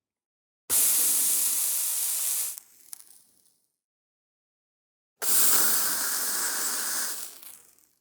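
Two hissing blasts of flame, each starting suddenly, lasting about two seconds and tailing off, with silence between them.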